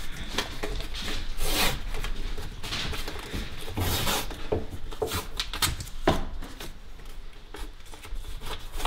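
Masking tape being pulled off the roll and pressed and rubbed down by hand along a dishwasher's rubber door seal. It comes as a series of irregular, short, noisy strokes.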